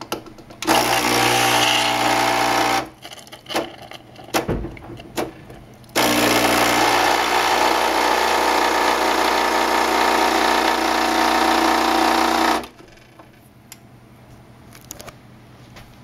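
Breville 800ESXL espresso machine's pump buzzing as it pushes water through the empty group head into a glass mug: a short run of about two seconds, a few clicks and a knock, then a longer run of about six and a half seconds that cuts off suddenly.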